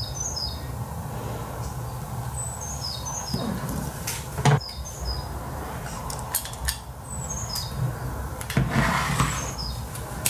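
A bird singing the same short phrase of high chirps, falling in pitch, about every two and a half seconds. Handling knocks and metallic clatter from the metal vise and parts on the table come in between, the sharpest a single knock about four and a half seconds in.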